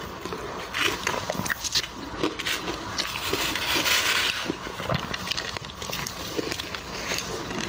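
Metal spoon scraping and scooping through crushed ice in a bowl, with crisp crackling and clicks. Near the end, a spoonful of crushed ice is crunched between the teeth.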